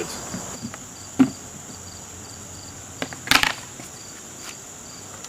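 Crickets chirring steadily, a high continuous chorus with a regular chirp over it. A single sharp knock about a second in and a louder brief clatter about three seconds in cut through it.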